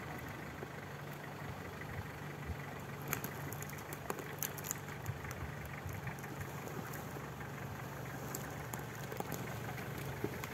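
Off-road vehicle's engine running steadily at low revs, fairly faint, with scattered small sharp clicks over it, while the vehicle crawls forward over a rocky trail.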